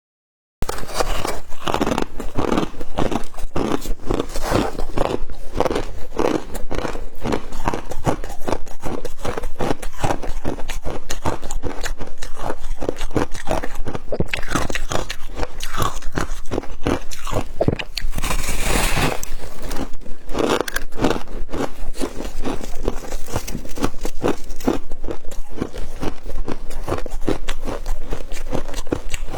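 Close-up biting and chewing of flavoured humidifier frost: a dense, continuous run of crisp crunches and crackles.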